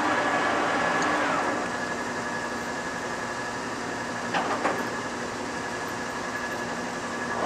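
TOS B40 toolroom lathe's 7.5 HP motor and geared headstock running, with a steady gear whine. About a second in, a falling whine and a drop in level are heard as the spindle runs down. Two short clunks come around the middle while the headstock speed is changed, and the spindle comes back up near the end.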